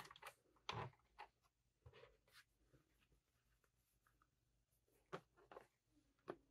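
Quiet handling noises: a few sharp clicks near the start as a snap-on Teflon presser foot is fitted to the sewing machine, then faint rustling and small clicks as the fabric piece is handled and set under the foot.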